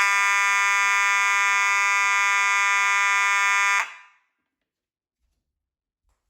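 Federal Signal 450D fire alarm horn sounding one steady, loud tone that cuts off sharply about four seconds in. It sounds clean, no longer raspy, now that its faulty strobe has been removed.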